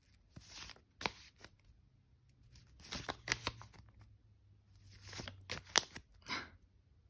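Stiff release-paper sheets with stickers on them rustling and crinkling as a stack is handled and leafed through, in several short bouts with sharp paper snaps.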